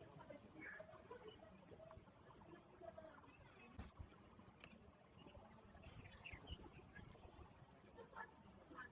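Near silence: faint outdoor ambience with a steady high-pitched hum and a few faint distant sounds, and a single soft knock about four seconds in.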